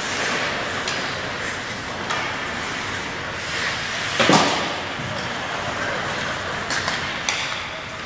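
Ice hockey play in a rink: a steady scrape of skates on ice with scattered clacks of sticks and puck, and one loud bang against the boards and glass a little over four seconds in.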